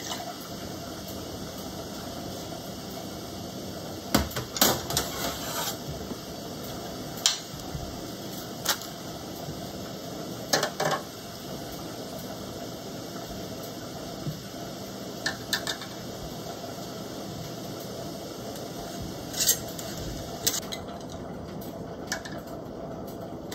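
Scattered clinks and knocks of glass canning jars and kitchen utensils being handled on a counter, a few short clatters several seconds apart, over a steady background hum.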